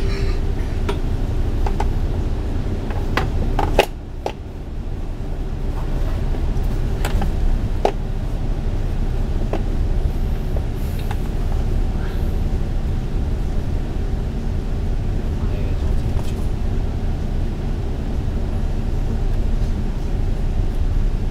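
Cabin noise of a MAN A95 double-decker bus cruising on a highway: a steady low engine and road drone, with a few sharp knocks and rattles, the loudest about four seconds in.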